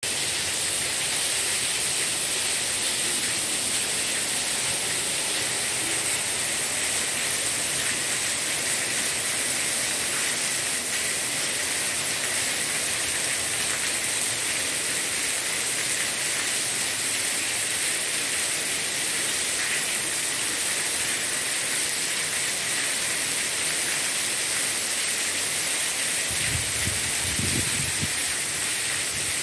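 Heavy rain pouring steadily onto stone paving and gravel, a dense, even hiss.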